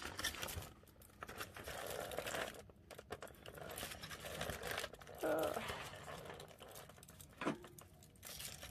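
Paper and cardboard packaging rustling and crinkling, with scattered small clicks and taps, as an advent calendar door is worked open and its contents pulled out.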